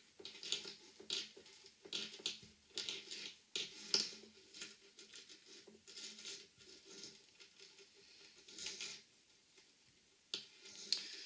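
Small metal rig parts (a stainless split ring, the wire corkscrew and treble hooks) clicking and scratching against each other in the fingers as the split ring is worked onto the corkscrew: irregular light ticks, a few a second.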